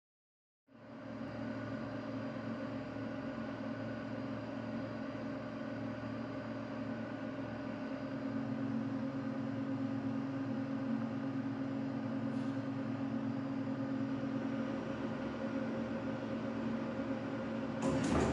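Steady electric-machine hum of the TEL 183 automatic leather-weaving loom, beginning about a second in. Near the end, quick mechanical clacking starts as the loom's weaving cycle gets going.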